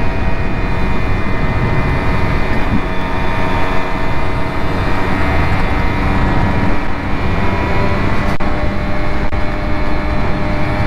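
Simson two-stroke moped engine running at a steady speed under way, with wind rush on the microphone.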